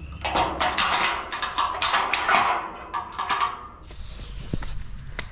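A key working a padlock on the sliding bolt of a metal gate: a quick run of metallic clicks and rattles for about three seconds, then a couple of single clicks.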